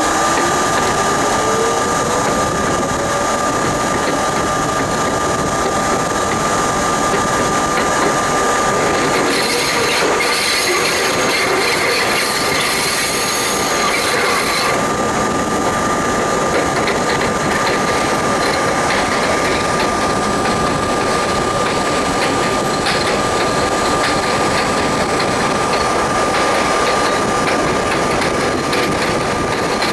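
R32 subway train running, heard from inside the front car: motor whine rising in pitch as it picks up speed at the start, over a steady high hum. About nine seconds in, the wheels squeal on the rails for roughly five seconds before the steady running resumes.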